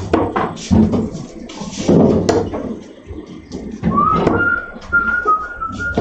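Steel-tip darts striking a bristle dartboard: a few sharp thuds, the crispest about two seconds in. Near the end comes a run of short high tones.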